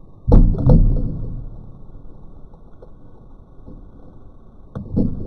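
Muffled, heavy thuds as chunks of a watermelon burst by a liquid-nitrogen bottle blast come down: two close together near the start, with a rumbling fade, and another near the end.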